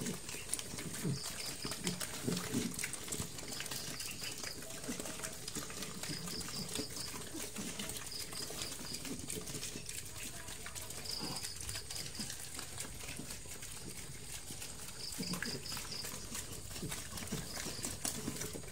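A group of pigs eating at a trough: wet chewing and slurping with scattered short, low grunts. A high chirping repeats every second or two in the background.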